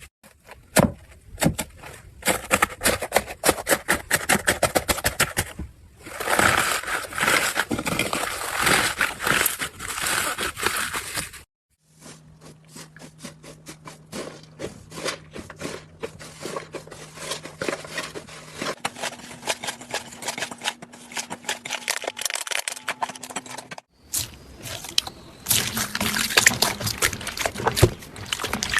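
Slime being squeezed and stretched by hand, making many quick sticky crackling and popping clicks, in several short clips cut together with brief silences between them.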